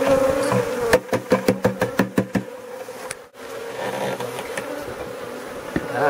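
Honeybees buzzing in a steady, close hum over an open hive. A little after a second in comes a quick run of about eight sharp knocks lasting about a second and a half, and the sound cuts out for a moment about three seconds in before the hum resumes.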